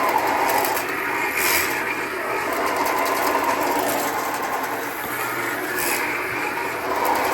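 Electric drain-cleaning machine running steadily, its cable spinning as it snakes out a blocked main sewer line.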